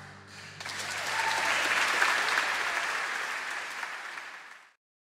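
Applause breaking out as the last chord of an orchestra dies away, then cut off abruptly near the end.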